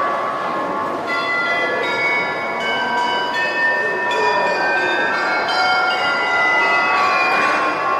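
Chiming from an interactive exhibit: many overlapping bell-like tones at different pitches, several starting each second and each ringing for about a second, over a steady background hubbub.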